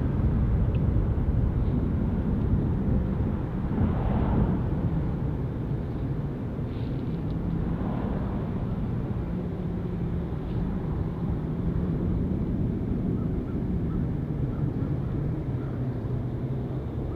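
Steady low rumble of an Airbus A310-308's twin GE CF6-80C2 turbofan engines as the airliner flies its approach at a distance.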